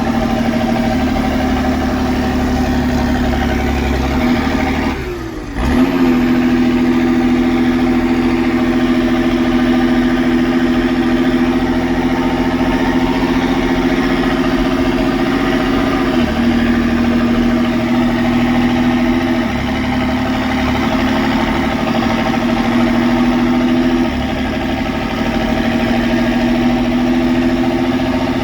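Massey Ferguson 6290 tractor's diesel engine running through a straight-pipe exhaust with no muffler, a steady loud drone. About five seconds in the revs drop briefly and then pick back up, and the pitch shifts slightly a few more times after that.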